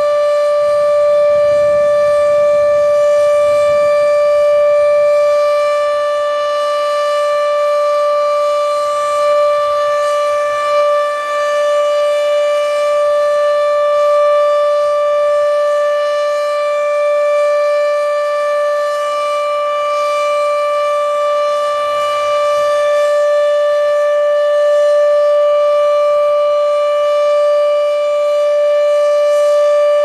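Sentry 14V outdoor warning siren sounding a steady tone during its monthly test, held at one pitch with only slight slow swells in loudness.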